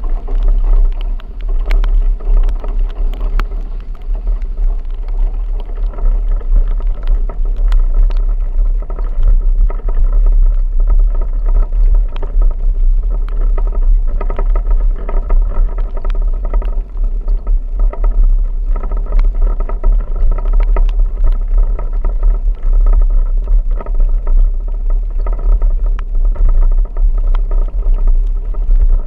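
A vehicle driving with a heavy low rumble and a steady drone, with scattered sharp ticks throughout.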